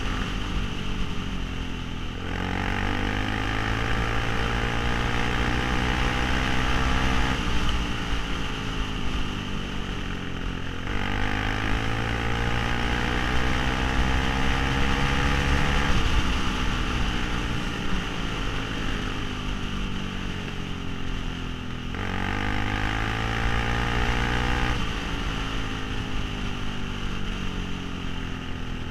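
Suzuki LTZ 400 quad's single-cylinder four-stroke engine running under way, its pitch climbing and then dropping abruptly several times as the rider works the throttle and gears, with wind noise on the microphone.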